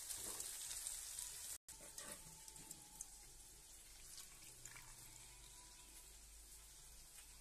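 Cabbage and cauliflower sizzling in a wok for about a second and a half, cut off suddenly. Then a faint hiss with a few small wet sounds as boiled soya chunks are squeezed by hand in a pot of water.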